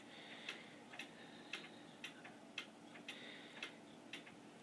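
Faint, steady ticking of a clock, about two ticks a second.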